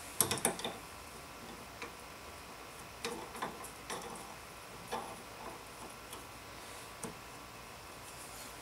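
Faint, irregular metal clicks and taps of an adjustable wrench on the nut where the outer tie rod threads onto the inner tie rod, as the nut is snugged up. The clicks come in a quick cluster near the start, then singly every second or two.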